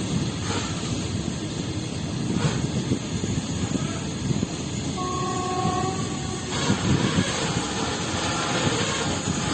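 Train running along the rails with a steady heavy rumble. About halfway through, a short two-tone horn sounds for about a second.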